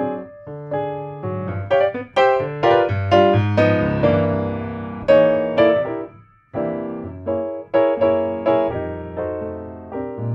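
Background piano music: a solo piano melody of struck notes that ring and fade, with a short pause about six seconds in.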